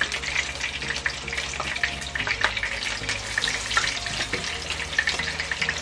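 Battered fish and shrimp sizzling as they fry in hot oil in a skillet, with a dense, steady crackle of popping oil.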